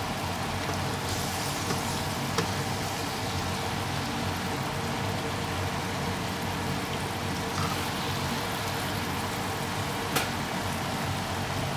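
Steady kitchen hiss with a low hum while food cooks on the stove, and a few light clicks as a slotted spatula stirs tapioca starch slurry in a small glass bowl.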